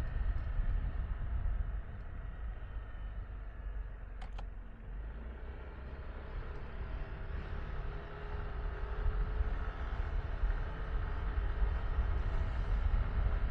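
Riding a Yamaha Tricity 155 scooter: wind rumble on the microphone over its small engine running. The rumble eases off from about two seconds in and builds again after about eight seconds, with a single sharp click about four seconds in.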